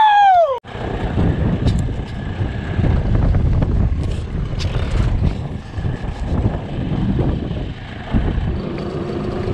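A short whooping shout that rises and falls, cut off suddenly, then wind rumbling on the microphone of a camera out on open water in a small boat. A faint steady hum comes in near the end.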